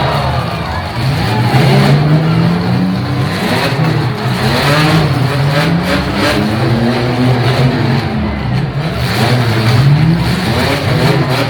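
Demolition derby car engines revving up and down hard, several at once, with a few sharp bangs in the middle.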